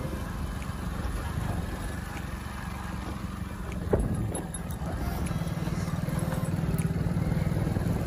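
Motorcycle engine running steadily while riding a rough dirt track, with a single sharp knock about four seconds in.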